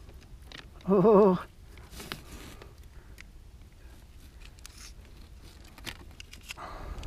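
Faint handling noise as a white bass is held and measured on a plastic box lid in a kayak: scattered small clicks and rustles. A brief wavering hum about a second in is the loudest sound.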